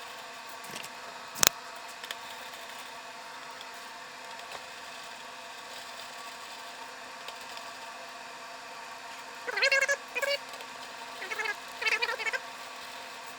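A single sharp click about a second and a half in, over a steady faint hum; near the end, two short bursts of warbling, pitched calls.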